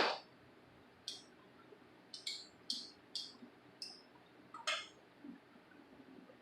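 Small hard objects being handled on a work surface: a sharp knock at the start, then about seven light clicks and clinks spread over the next few seconds.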